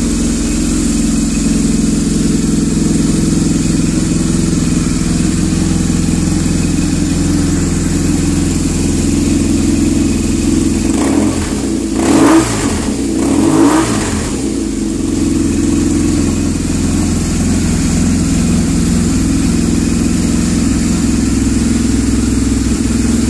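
2014 BMW R nineT's 1170 cc boxer twin idling steadily through a Schnitzer full exhaust system, revved twice in quick succession about halfway through, the pitch rising and falling with each blip.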